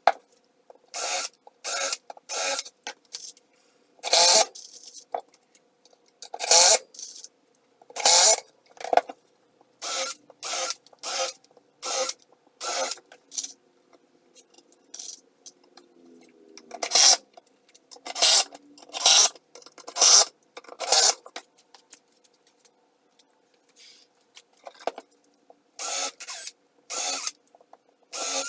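Cordless drill and impact driver working in many short bursts, about one a second: a countersink bit boring pilot holes into plywood and screws being driven home, with a rasping bite on each burst.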